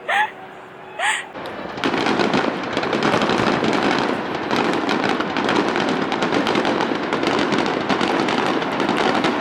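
Fireworks crackling in a dense, continuous barrage of fine pops, starting abruptly about two seconds in.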